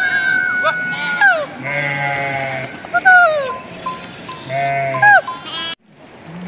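A flock of sheep and goats bleating: a string of loud, overlapping calls, several falling in pitch at the end. The sound cuts out briefly near the end.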